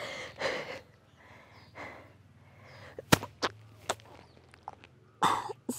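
A woman breathing hard in short puffs of breath while working through a sit-up exercise. A few sharp clicks come about halfway through.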